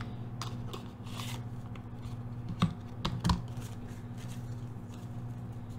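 Tarot cards being handled as a clarifier card is drawn: scattered light taps and scrapes, with two sharper taps a little past the middle, over a steady low hum.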